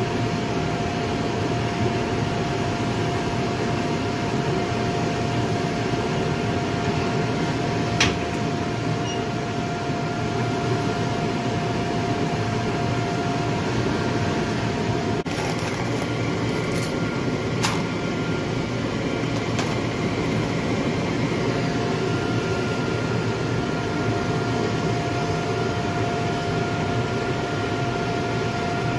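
Furnace melting copper and tin for bronze, running with a steady rushing noise and a steady whine from its burner and blower. A few sharp metal clicks sound about eight seconds in and again several times a little past the middle, as a steel rod knocks inside the furnace.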